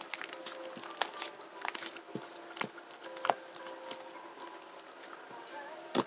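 Red slime with a strawberry topping being squished and poked by hand, giving irregular sticky clicks and crackles.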